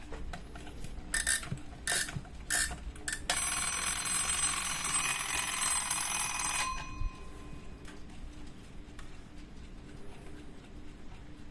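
Rhythm 51114 alarm clock's alarm ringing. Four short bursts, then one continuous ring of about three and a half seconds that stops suddenly, with a faint tone dying away after it.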